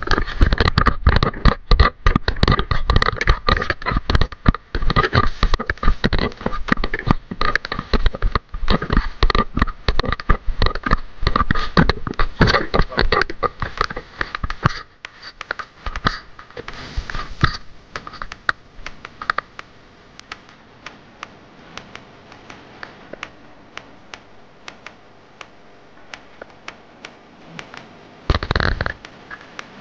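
Close handling noise: gloved hands rustling, scraping and knocking while working fishing line and a jig beside the microphone, dense and loud at first, thinning out about halfway to faint scattered ticks, with one short loud rustle near the end.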